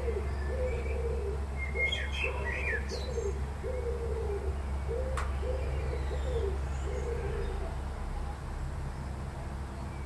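Wood pigeon cooing: a dozen or so low coos in repeated phrases, the last ones about two seconds before the end. Faint small-bird chirps come in about two seconds in, and a single sharp click comes about five seconds in, over a steady low hum.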